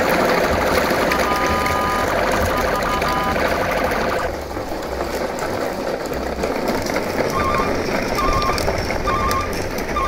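Plastic wheels of a train of toy dump trucks rolling and grinding over rough concrete as the trucks are towed on a string, a steady rattling noise. Short electronic beeps repeat over it, in a patch near the start and again in the second half at a little under one a second.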